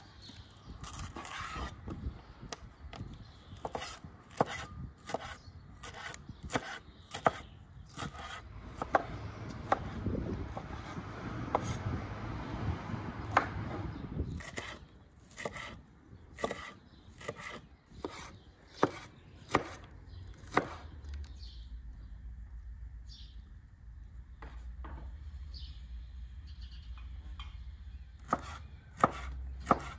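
Chef's knife cutting green bell peppers on a wooden cutting board: irregular sharp knocks as the blade strikes the board, with a stretch of rustling in between.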